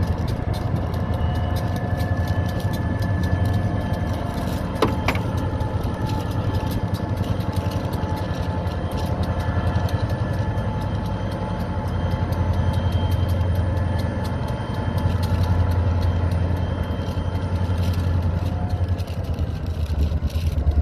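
High-hood EMD GP diesel locomotives working under load as they shove cars: a steady deep engine drone with the whine of their turbochargers held above it. A single sharp knock comes about five seconds in.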